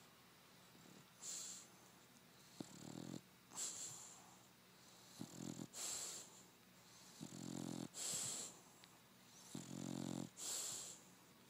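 English bulldog snoring in its sleep: a low rattling snore alternating with a hissing breath, in a steady rhythm of about one breath cycle every two and a half seconds.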